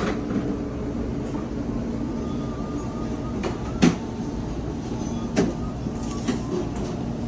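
Steady machine hum of kitchen equipment, with a few sharp knocks as a block of raw tuna loin is turned and set down on a plastic cutting board. The loudest knock comes just before the middle, another follows about a second and a half later.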